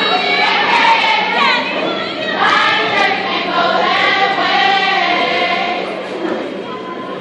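A group of women singing together in unison, loud and echoing little, growing somewhat quieter toward the end.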